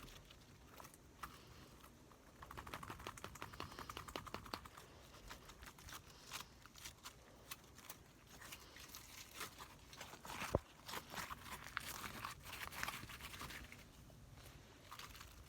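Slime being handled and squished: quiet bursts of small crackling, popping clicks, with one sharper click about ten and a half seconds in.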